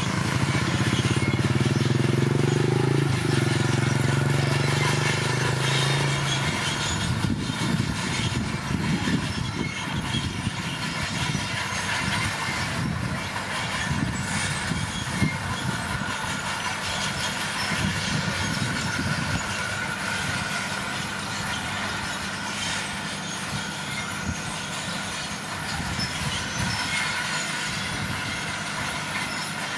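Komatsu D41P crawler bulldozer working: a steady diesel drone for the first several seconds, then continuous clanking and rattling of the steel tracks over the engine.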